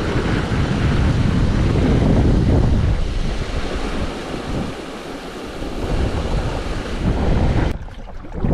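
Wind buffeting the camera microphone: a loud, low rushing noise that swells and fades, and cuts off abruptly near the end.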